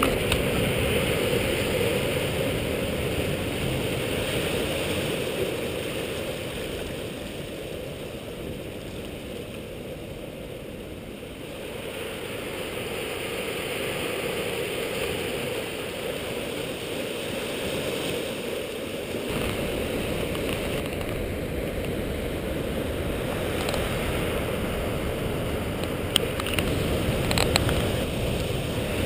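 Steady rush of sea water washing among rocks, with a change in tone about two-thirds through and a few sharp clicks near the end.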